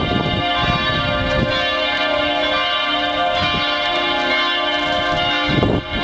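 The church bells of the rebuilt Dresden Frauenkirche ringing together in a full peal, many overlapping tones sounding steadily with fresh strikes.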